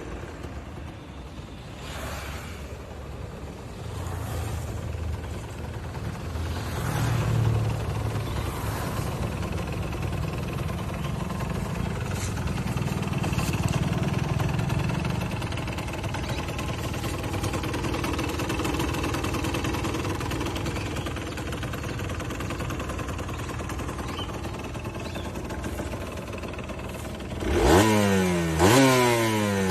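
Kawasaki KMX 125's two-stroke single-cylinder engine running at a steady low speed through its stock exhaust. Near the end it is revved in a quick series of sharp throttle blips, each a fast rising sweep.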